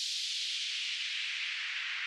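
Sound-system test signal for the high-frequency range: a steady band of high-pitched hiss sliding slowly downward in pitch.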